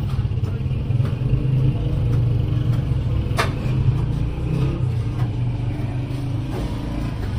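Steady low rumble with one sharp click about three and a half seconds in; the rumble cuts off suddenly at the end.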